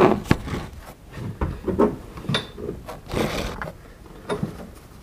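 A person climbing into a UTV seat and handling a four-point safety harness: a series of knocks and clicks against the seat and cage, with the rustle and rub of the harness webbing and clothing.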